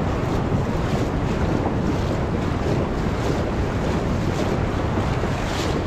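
Ocean surf washing over the shallows, with wind buffeting the microphone: a steady rush of water and wind noise.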